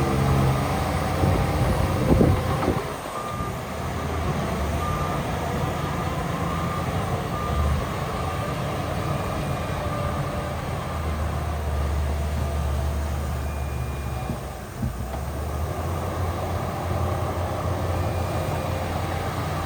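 Heavy diesel earthmoving machinery running, with a reversing alarm beeping in short repeated tones. There is a loud knock about two seconds in.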